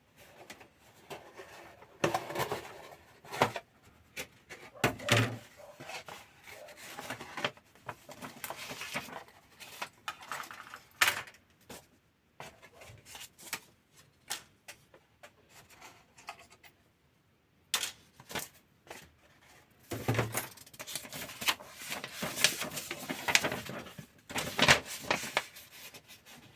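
A plastic model kit being unboxed: the cardboard box and the bagged plastic parts rustling and clattering as they are handled, with irregular clicks and knocks.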